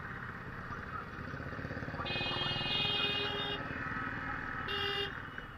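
Motorcycle engine idling steadily. A vehicle horn sounds for about a second and a half starting two seconds in, then gives a short honk near the end.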